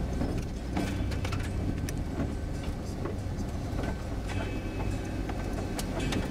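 A car engine running steadily with a low hum, with scattered light clicks and rattles over it.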